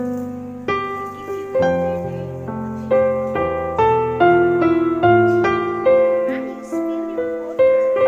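Background piano music: a slow, gentle melody, with a new note struck about once a second over lower sustained notes.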